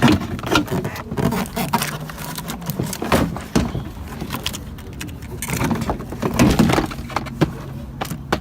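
Irregular clicks, knocks and rattles of hands working the latch and interior trim of a car door, with plastic parts snapping and clattering.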